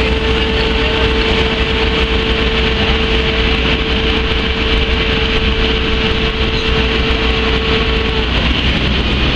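Steady machinery noise from an engine running: a constant low rumble with a steady hum that cuts off about eight seconds in.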